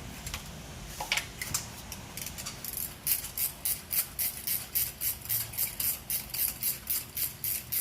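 Hand socket ratchet clicking, worked in short strokes on the engine's ignition coil packs. A few scattered clicks, then from about three seconds in an even run of sharp metallic clicks at about four a second.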